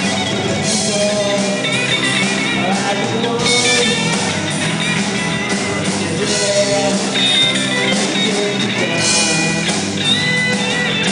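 A rock band playing a song, with guitar and singing.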